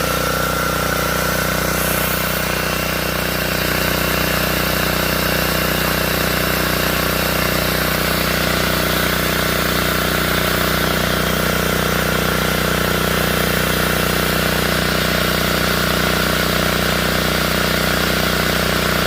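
Small petrol engine running steadily at a constant speed, with no revving or load changes.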